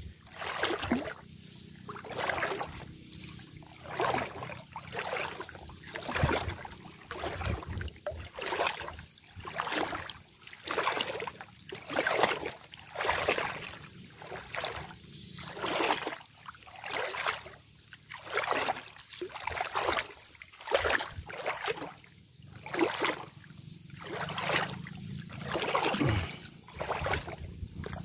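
Footsteps wading through shallow paddy water, each stride a swish and slosh, about one a second.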